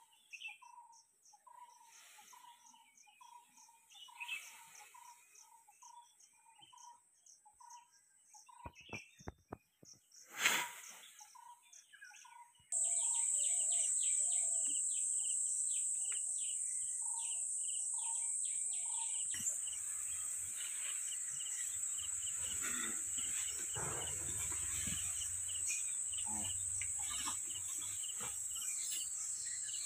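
Forest ambience: a bird repeating a short call about twice a second, with a sharp knock about ten seconds in. After an abrupt change, a loud steady high insect drone sounds over dense chirping, with a low rumble joining around twenty seconds in.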